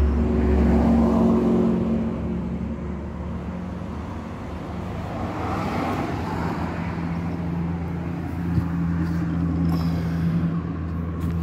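A motor vehicle's engine running steadily, with road-traffic noise; louder in the first couple of seconds.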